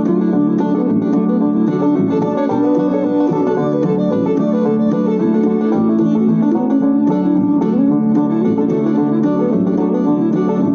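Background music: fast plucked-string tune with a bluegrass feel, banjo and guitar picking over a steady accompaniment.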